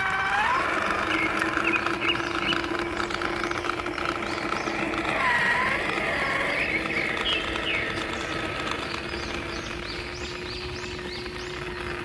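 A small electric motor runs with a steady hum and a fine gear rattle, cutting out briefly about halfway through and then starting again. Birds chirp in the background.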